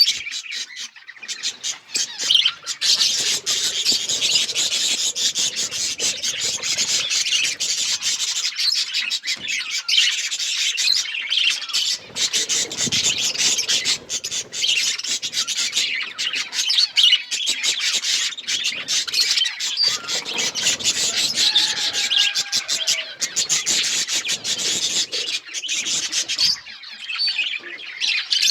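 A flock of budgerigars chattering continuously: a dense, unbroken mix of many overlapping chirps and warbles.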